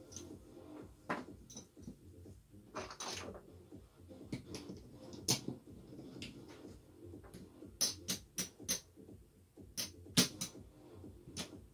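Casino chips clicking together as they are counted and stacked by hand on a felt craps table: sharp single clicks at irregular intervals, with a quick run of several about eight seconds in.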